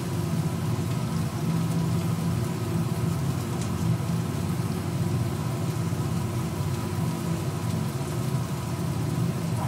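French fries deep-frying in a wire basket of hot oil: steady sizzling and bubbling over a low, even hum.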